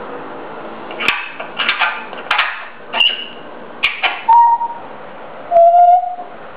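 Grey parrot making about five short, harsh calls, then two whistled notes, the last one lower and the loudest.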